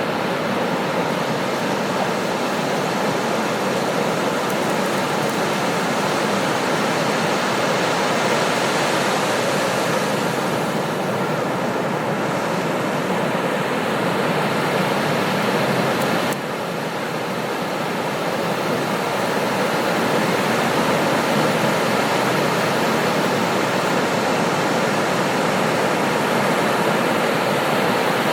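Ocean surf breaking on a beach, a continuous wash of noise with no gaps between waves. It dips slightly about sixteen seconds in and builds back up over the next few seconds.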